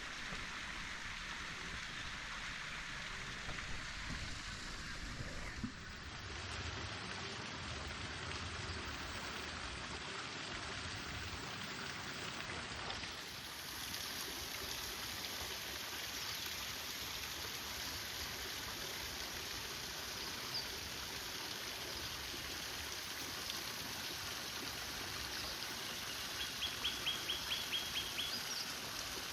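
Steady hiss of running water. Near the end a bird gives a short run of about ten quick, evenly spaced high notes.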